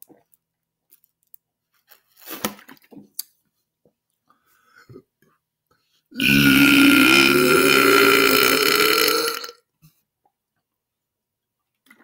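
A man's long, loud belch lasting about three and a half seconds, starting about six seconds in and rising slightly in pitch as it goes. A few faint short noises come before it.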